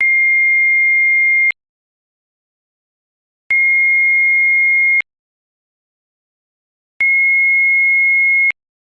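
Pure electronic sine tone near 2 kHz, sounding three times in beeps about a second and a half long, each switched on and off abruptly with a small click, repeating about every three and a half seconds.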